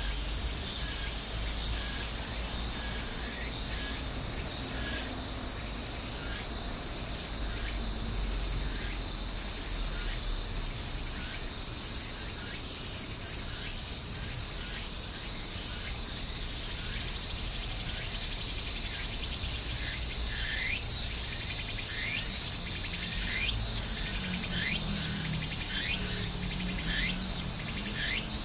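A steady high-pitched insect chorus, with birds giving short falling chirps over it, the chirps coming more often in the second half.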